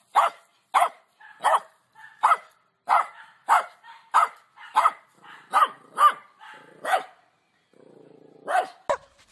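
Small, slim, short-coated dog barking over and over, one short bark about every two-thirds of a second, then a pause of about a second and a half before two more barks near the end.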